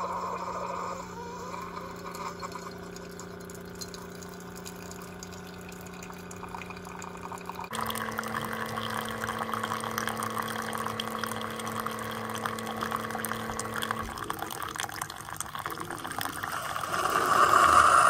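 Single-serve pod coffee maker brewing: its pump hums steadily while a thin stream of coffee pours and splashes into a ceramic mug, growing louder near the end.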